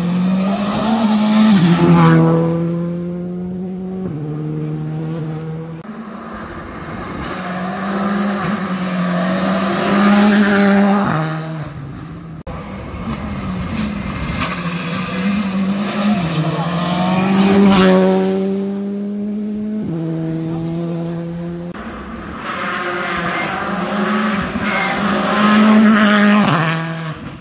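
Rally cars at full stage pace, engines revving hard through the gears. The pitch climbs, then drops in steps at each gear change, and the loudness swells as each car passes, about four times.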